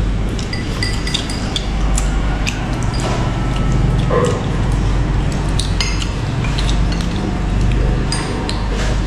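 Tableware clinking during a meal: scattered short clinks and taps of utensils against bowls and plates, over a steady low hum.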